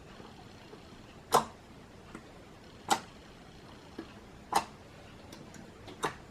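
Iceberg slime's hardened crust cracking as it is poked and torn: four sharp cracks about a second and a half apart, with fainter ticks between.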